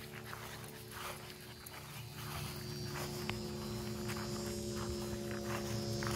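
A small dog on a leash sniffing and moving about, in short snuffling strokes, over a steady mechanical hum that grows louder about two seconds in.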